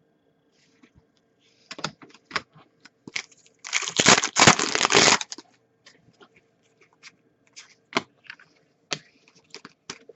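Hockey trading cards being handled, with scattered light clicks and taps. About four seconds in comes roughly a second and a half of loud tearing and crinkling of pack wrapping.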